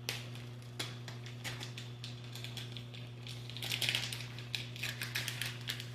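Plastic noodle packet crinkling and rustling as it is handled, with scattered small clicks and two denser bursts of crinkling a few seconds in, over a steady low hum.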